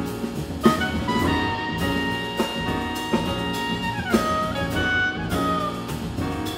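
Small jazz band playing live: a clarinet carries the melody in long held notes with a falling bend about four seconds in, over piano, double bass and drum kit with frequent cymbal strikes.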